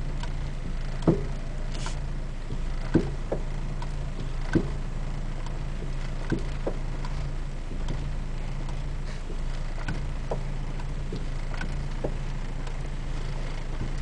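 Clunks from the front driver-side suspension of an Acura RSX Type-S as the steering wheel is turned, a sign of a fault in the front suspension. About five sharp knocks come in the first six seconds, then only faint ticks, over a steady low hum.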